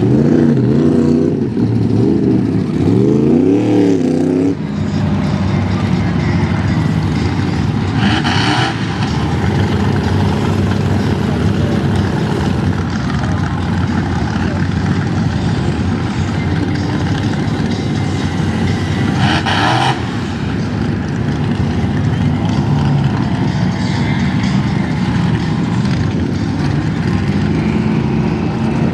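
Mud bog truck's engine revving hard: its pitch rises and falls for the first few seconds, then it runs at high revs steadily. Two short, sharp bursts of noise come about 8 and 19 seconds in.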